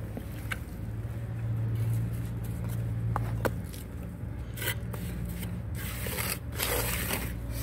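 Steel trowel scraping and spreading wet cement mortar along the back of a concrete kerb stone, with several louder rough scrapes in the second half. A steady low hum runs underneath.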